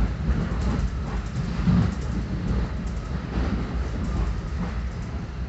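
Exo commuter train running on the Vaudreuil–Hudson line: a steady low rumble of wheels on rails, with a few irregular knocks and clacks, the loudest about two seconds in.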